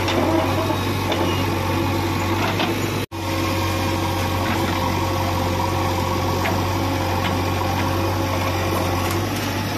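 JCB backhoe loader's diesel engine running steadily while the backhoe arm dumps soil into a tractor trolley and swings back, with a few faint clicks. The sound cuts out for an instant about three seconds in.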